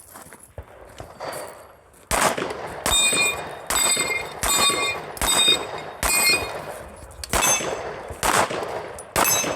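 Gunshots at a steady pace, about one every 0.8 s, starting about two seconds in, about nine in all. Most are followed by the brief ring of hit steel targets.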